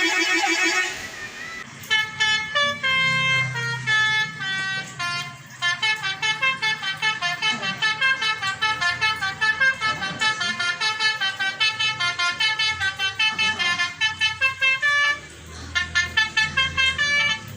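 Bus basuri (telolet) multi-tone air horn playing a fast tune of short stepped notes, about three or four a second, pausing briefly near the end before starting again.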